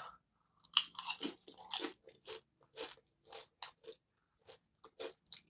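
Spicy sweet chili tortilla chips being bitten and chewed: a string of short, crisp crunches at an uneven pace, starting a little under a second in.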